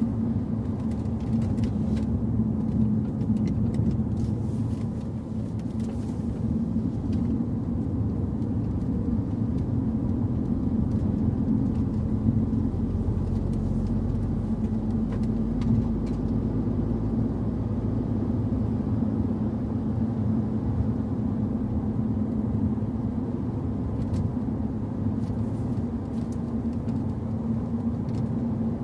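Car engine and road noise heard from inside the cabin, running at a steady, unchanging pitch with no revving: a car cruising at an even, gentle pace.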